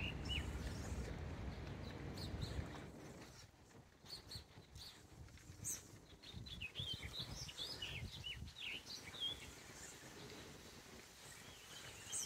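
Small birds chirping and calling in quick short notes over a low rumble that fades out about three seconds in.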